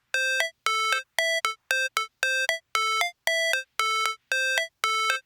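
Background music: a repeating electronic synth figure of short beeping notes, each a lower note stepping up to a higher one, about twice a second with silence between.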